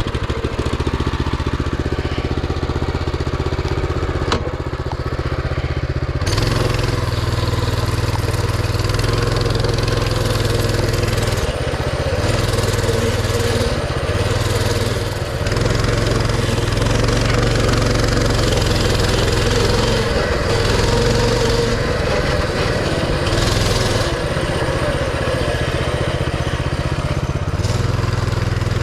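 Massimo Warrior 200 mini bike's small single-cylinder four-stroke engine running after a choked start. It runs steadily at first. About six seconds in the throttle opens and it pulls under load, its speed rising and falling several times as the bike is ridden.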